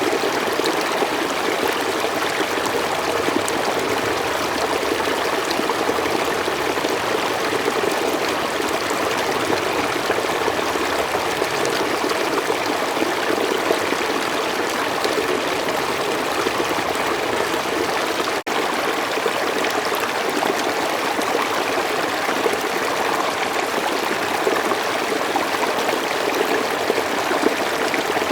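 A stream running steadily, its water splashing and trickling in an even rush, with one brief dropout about two-thirds of the way through.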